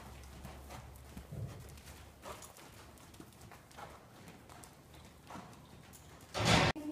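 A ridden horse's hoofbeats thudding dully on soft dirt arena footing at a walk. Near the end comes a brief, loud rush of noise.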